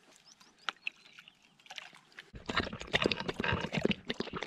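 A dog lapping water from a bowl, quick wet laps that start a little over two seconds in after a quiet stretch.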